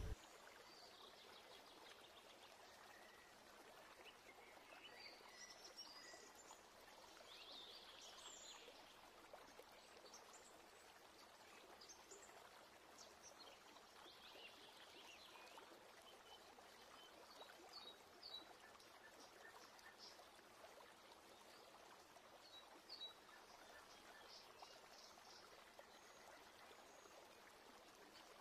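Near silence: faint outdoor ambience with a few scattered, faint bird chirps.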